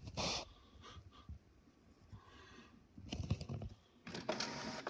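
Small clicks and taps of a hand working an inkjet printer's front panel, with a cluster of taps about three seconds in; a steadier noise sets in near the end.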